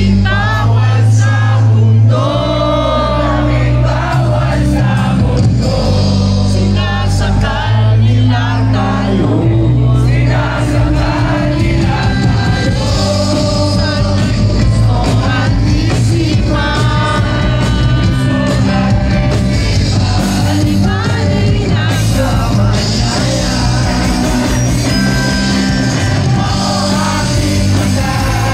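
Live rock band playing: a male lead singer over electric guitars, bass guitar and drums.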